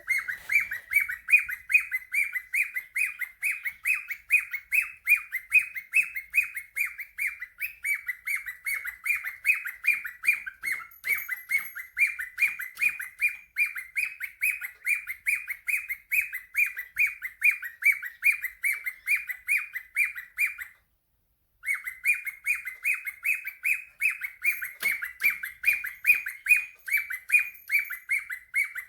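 A cockatiel chirping rapidly and repeatedly in short, even chirps, about four a second. The chirping cuts out for about a second roughly three-quarters of the way through.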